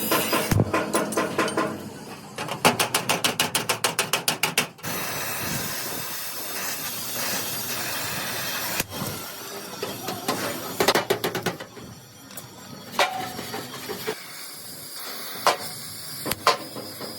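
Workshop tool noise on sheet metal: a quick run of sharp knocks, about eight a second, then a steady hiss lasting a few seconds, then scattered single knocks and clicks.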